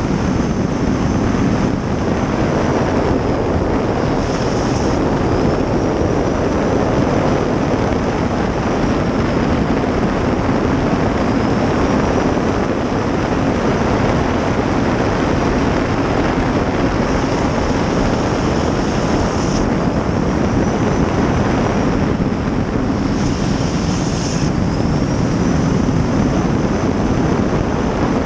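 Gas-turbine-powered river racing jet boat running at speed, heard from inside the cockpit: a loud, steady rush of turbine, jet and water, with a faint high whine drifting slowly up and down in pitch.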